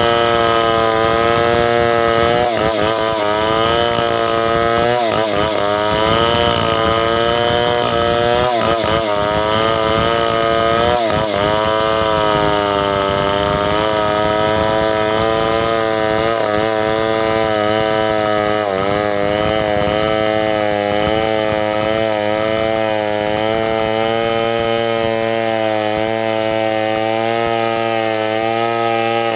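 Two-stroke chainsaw running hard while cutting wood, its engine pitch dipping and recovering several times in the first ten seconds or so as the chain takes load, then running steadier.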